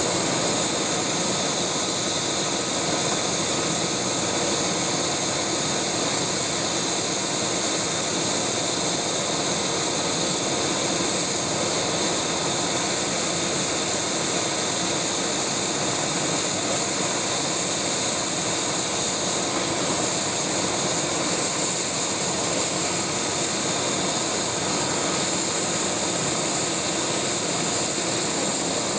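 Eurocopter EC145 (MBB BK117C-2) helicopter running on the ground: its twin turboshaft engines give a steady high whine over a constant rush of engine and rotor noise.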